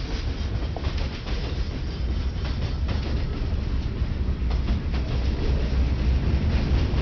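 Freight train boxcars and gondolas rolling past at close range: a steady low rumble of wheels on rail, with a few sharp clacks as wheels cross rail joints.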